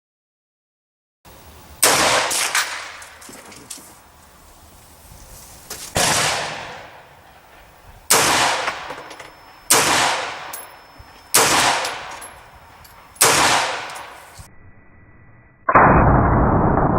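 AR-15 semi-automatic rifle in 5.56/.223 fitted with a muzzle brake, firing about six single shots roughly every one and a half to two seconds, each with a ringing echo. A loud steady noise cuts in near the end.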